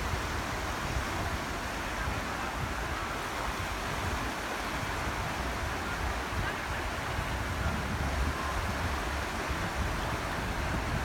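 Small waves washing in over a shallow sandy shoreline as a steady surf hiss, with an uneven low rumble of wind on the microphone.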